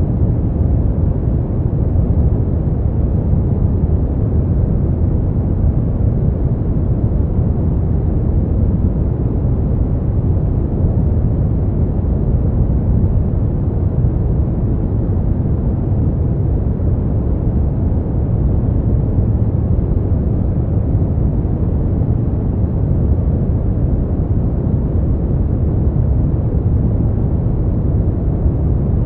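Steady smoothed brown noise: a constant, deep, rumbling hiss with most of its energy in the low end and little above a few thousand hertz, unchanging throughout.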